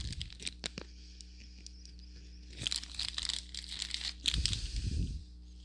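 Clear plastic zip-lock bags of wax melts crinkling as they are handled, in a few short bursts.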